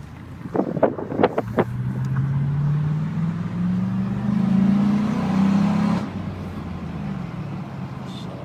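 Pickup truck engine accelerating: its note climbs steadily for about four seconds, then drops back suddenly as the throttle eases and settles to a steady run. A few sharp clicks come just before it pulls away.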